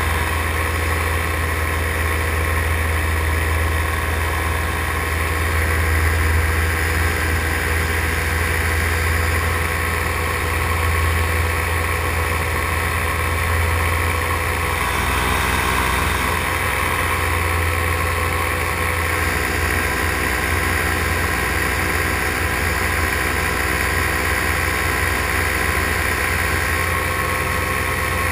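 Paramotor engine and propeller running steadily in flight: a constant engine drone with a strong low hum and no change in throttle.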